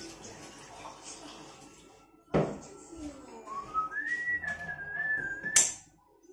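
A person whistling a few wavering notes that rise in pitch and settle, with a sharp knock a couple of seconds in and a loud click near the end.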